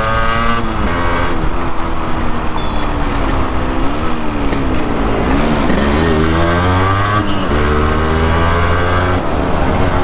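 Yamaha RX100's single-cylinder two-stroke engine running on the move, its pitch dropping and climbing again several times with throttle and gear changes, over a steady rushing noise.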